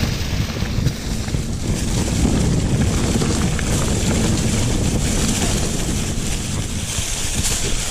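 Wind buffeting the camera microphone as a mountain bike rides fast down a dirt trail, with the knobby tyres rolling over dry leaves and the bike rattling: a steady rushing rumble.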